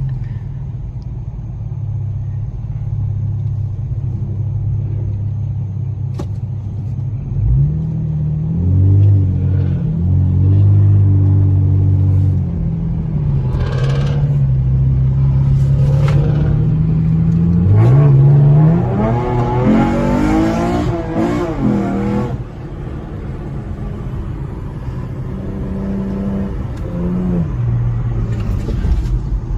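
Modified car engine and exhaust running steadily while driving, revving up about seven seconds in and pulling hard from about eighteen seconds in, then dropping off sharply about twenty-two seconds in.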